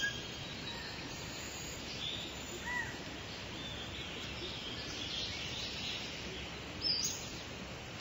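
Scattered bird chirps and whistles over a steady hiss of outdoor ambience, with a slightly louder burst of calls near the end.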